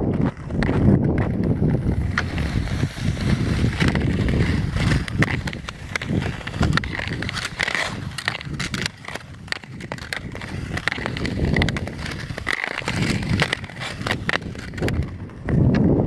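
Ice skate blades scraping and gliding over natural lake ice in quick strides: a low rumble with many sharp crackling clicks.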